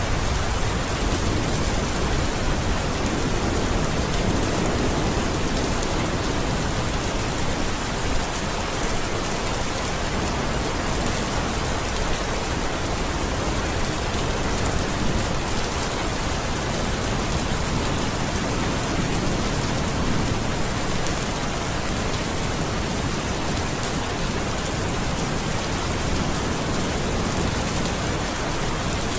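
Steady heavy rain falling and pattering on surfaces, with a low rumble of distant thunder swelling and fading twice.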